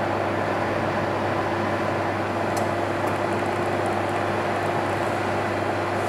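An 1800 W wall-mounted electric bathroom heater's blower running: a steady rush of air over a low, even hum. A faint click comes about two and a half seconds in.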